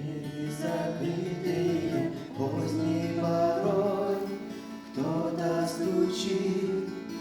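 A church choir singing a slow Russian hymn, voices together in phrases of about two to three seconds each.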